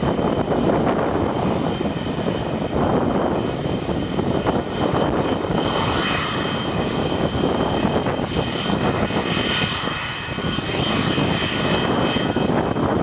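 Boeing 737-200's Pratt & Whitney JT8D turbofan engines running, a loud rushing jet noise with a steady high whine that grows stronger about halfway through.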